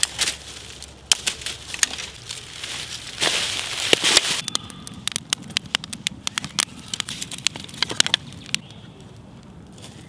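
Dry leaves and twigs rustling as sticks are picked up from the forest floor, then, about four seconds in, a wood fire crackling with many sharp pops inside a stacked-rock oven, the pops thinning out near the end.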